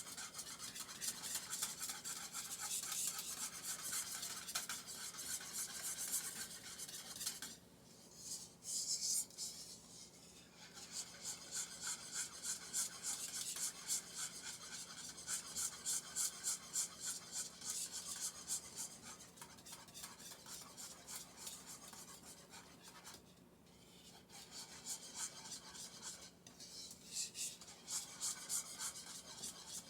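A utensil scraping round and round the bottom of a saucepan as an Alfredo sauce is stirred, in quick, even strokes with a few short pauses. A faint steady hum lies underneath.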